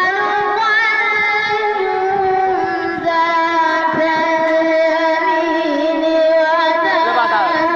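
A boy chanting a Quran recitation in melodic tajweed style. He holds one long note that steps down in pitch partway through and breaks into quick ornamented wavers near the end.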